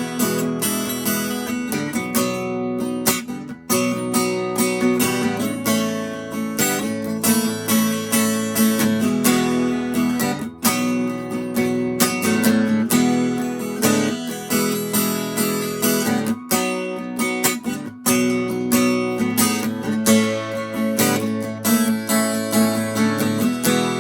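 Acoustic guitar strumming chords in the instrumental break of a slow country song, with no singing.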